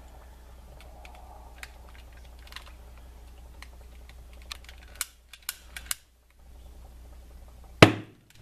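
Homemade HHO electrolysis cell fizzing, with scattered small clicks and a quick run of sharper clicks. Near the end comes a single loud, sharp pop with a short ring: the heap of hydrogen-oxygen gas bubbles on the bubbler jar catching fire and going off.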